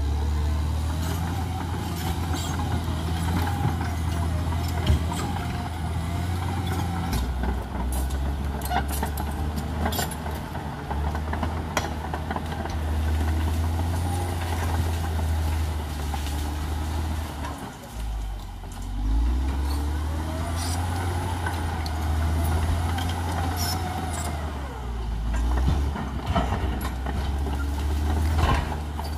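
Caterpillar D6R XL crawler bulldozer working: its diesel engine runs steadily under load, with sharp clanks and knocks from the steel tracks and rock scattered throughout. About two-thirds of the way through the engine dips briefly and then rises again.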